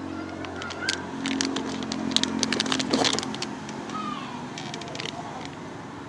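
Plastic retail packaging crinkling and crackling in the hand in a run of sharp clicks, loudest from about a second in to about four seconds in, over a steady low engine-like hum.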